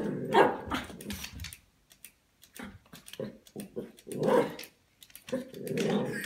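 Small terrier barking and growling at a toy robot in about four short bursts.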